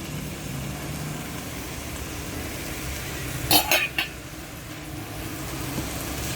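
A short clatter of a cooking utensil knocking against the rice cooker's pot, about three strikes in quick succession, about three and a half seconds in, over a steady low hum.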